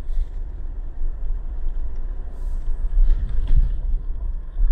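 Car driving along a paved road, heard from inside the cabin: a steady low rumble of road and engine noise.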